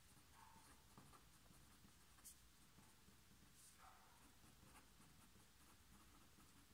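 Felt-tip pen writing on paper: faint, scratchy strokes in short groups, with one light tick a little over two seconds in.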